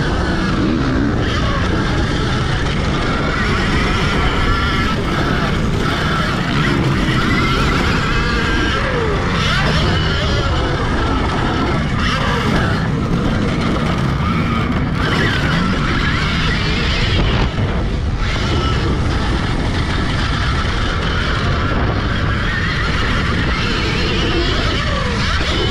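Alta Redshift MXR electric dirt bike's motor whining, its pitch rising and falling again and again with the throttle, over a steady rush of wind noise.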